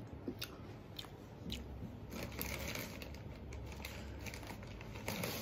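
Handling noise close to the microphone: soft rustling of a cotton sweatshirt with scattered light clicks and taps.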